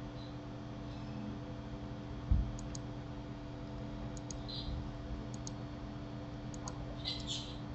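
Computer mouse clicks, mostly in quick pairs of ticks, and a few keyboard key presses, with a short cluster of clicks near the end, over a steady low hum. One low thump a little over two seconds in is the loudest sound.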